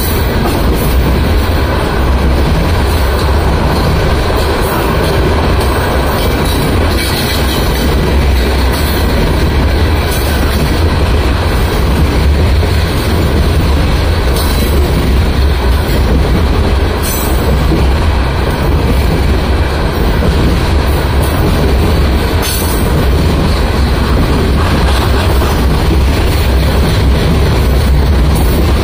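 A long freight train of loaded aggregate hopper cars rolling past: a steady heavy rumble of steel wheels on rail, with a few brief sharp noises along the way.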